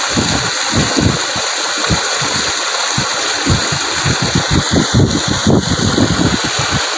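Water gushing hard out of the open end of a large black pipe onto rocky ground: a loud, steady rush with uneven low surges.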